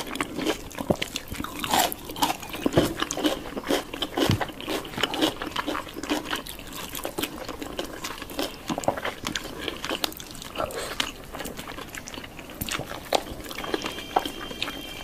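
Close-miked mukbang eating sounds: a steady run of irregular bites and crunchy chewing, with wet, saucy mouth sounds.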